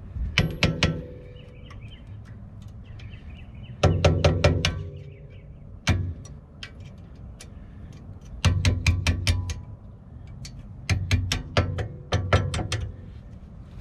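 Hammer tapping a small drill bit used as a punch against the rear brake caliper's pad retaining pin, to drive the pin out. The sharp metallic taps come in several quick bursts with pauses between, some hits ringing briefly.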